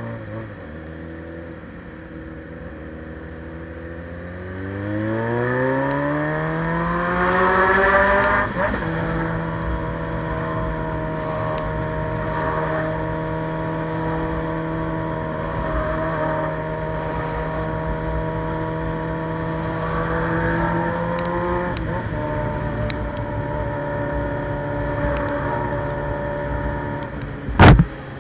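Suzuki Bandit 600's carbureted inline-four engine through a straight-pipe sport exhaust: it pulls away with the pitch climbing for a few seconds, drops with a gear change, then holds a steady cruise. A single sharp knock sounds near the end.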